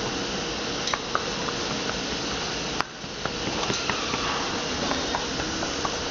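Steady hissing workshop noise with scattered light clicks, dipping briefly about three seconds in, as a handheld tool is worked along the tread of a truck tire.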